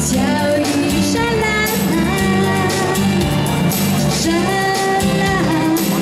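Female pop singer singing a Cantopop song live over instrumental accompaniment, with held and gliding notes.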